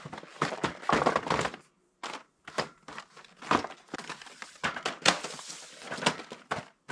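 Toy boxes and packaging being handled and set on shelves: irregular crinkling, rustling and light knocks.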